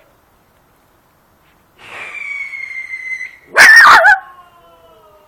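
German hunting terrier (Jagdterrier) puppy giving a long, high whine that falls slightly in pitch, then one loud, sharp bark about three and a half seconds in.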